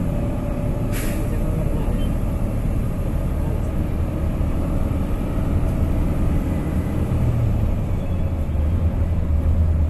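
Steady low engine and road rumble of a city bus underway, heard from inside the cabin, growing somewhat heavier in the second half. One short sharp knock about a second in.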